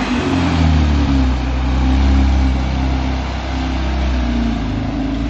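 Porsche 911 Carrera T (991.2) twin-turbo 3.0-litre flat-six running at low revs through a newly fitted, freer-flowing aftermarket exhaust as the car pulls slowly away, its note rising and falling gently.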